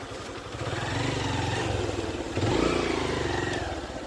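Motorcycle engine revving up from idle about half a second in, loudest a little past the middle, then easing back to idle near the end.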